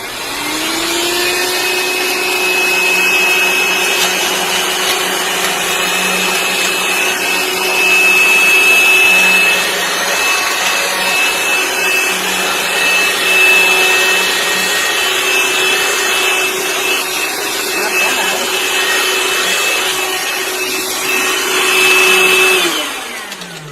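Cordless handheld vacuum cleaner switched on, its motor spinning up into a steady high whine with rushing air as it sucks up potato chips, then switched off and winding down near the end.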